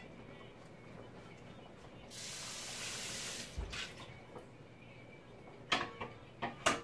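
Kitchen tap running into a sink for about a second and a half, a steady hiss of water, followed near the end by a few sharp knocks and clinks.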